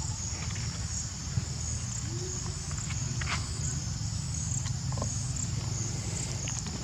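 Steady high-pitched insect drone that swells in regular pulses about once a second, over a constant low rumble, with a few faint clicks.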